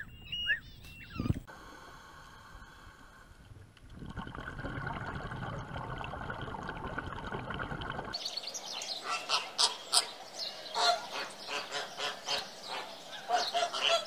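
A few short chirps in the first second or so, then a steady rushing wash for several seconds. From about eight seconds in, a flock of flamingos honks, a dense run of short goose-like calls.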